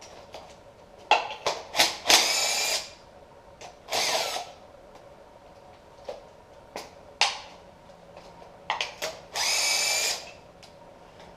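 A cordless power tool with a spark plug socket spinning spark plugs out of an aluminium cylinder head in three short whirring runs, with clicks and knocks of the socket and plugs being handled between them.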